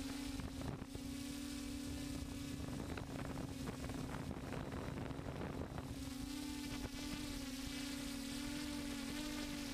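DJI F550 hexcopter's six electric motors and propellers buzzing steadily in flight, picked up by the GoPro on the craft. The steady pitch is partly masked by a rushing noise between about one and six seconds in.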